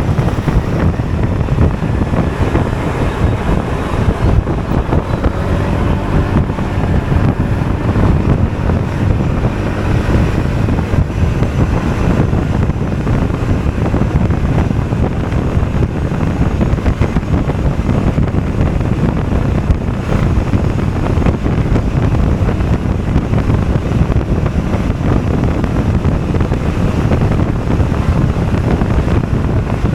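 Steady wind rush buffeting the microphone while riding, over the running engine of a Honda Forza 250 scooter.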